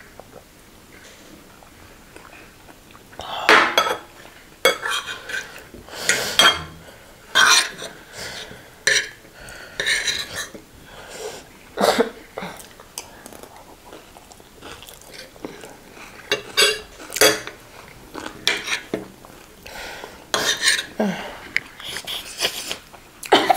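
Metal forks and spoons scraping and clinking against ceramic dinner plates of rice, short irregular strokes about once a second, starting about three seconds in.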